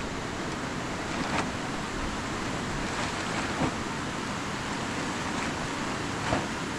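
Steady wind rushing across the microphone, with a few brief crackles from a plastic sheet being unfolded and spread over gravel: one about a second and a half in, one near the middle and one near the end.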